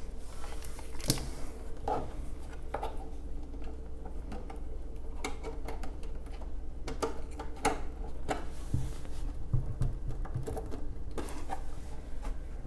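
Irregular light clicks, taps and rattles of a cable and plastic housing being handled as an HDMI plug is worked into the port on the back of a computer monitor, over a steady low hum.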